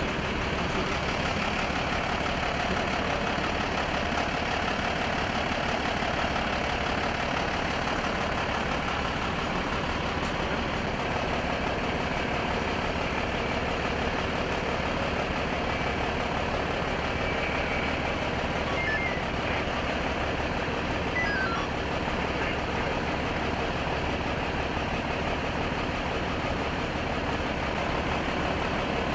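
Steady drone of a large idling engine, with an even level and no breaks.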